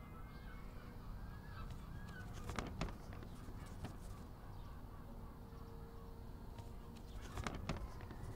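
Birds chirping over a low steady outdoor rumble for the first couple of seconds, then short crisp rustles of paper at about two and a half, three and four seconds in, and a cluster of sharp paper sounds near the end as a sheet is torn from a spiral-bound notebook.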